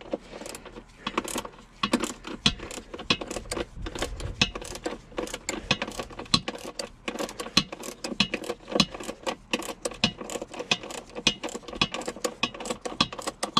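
Ratchet wrench clicking in quick back-and-forth strokes, loosening the fasteners that hold a Thetford Style II toilet's porcelain bowl to its plastic base.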